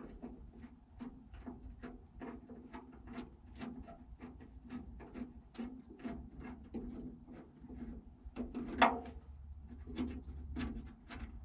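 Many small irregular clicks and taps from hand tools working the door-latch screws and metal parts inside an M35A2 truck door, with one louder knock about nine seconds in, over a faint low hum.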